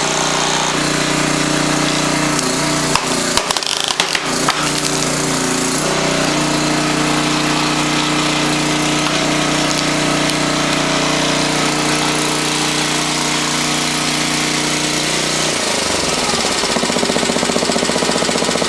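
A 10 HP Briggs & Stratton Intek single-cylinder engine runs steadily, driving the hydraulic pump of a log splitter as the ram pushes a log through the wedge. A short cluster of sharp cracks and knocks comes about three to four and a half seconds in. Near the end the engine note drops and turns into a faster pulsing run.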